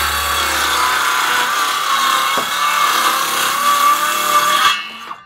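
DeWalt cordless circular saw cutting through wooden boards, its motor whining steadily under load, then stopping suddenly near the end.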